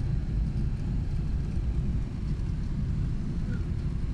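Steady low rumble of cabin noise inside an airliner taxiing after landing, with its engines at idle.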